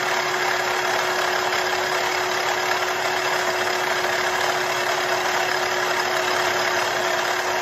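Small electric food chopper running steadily with one unchanging hum, its blades churning apple and banana with honey into a purée.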